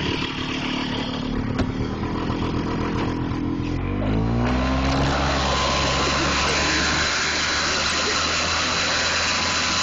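An ATV engine running steadily, then revving up about four seconds in and holding at high revs under load, with a steady rushing noise.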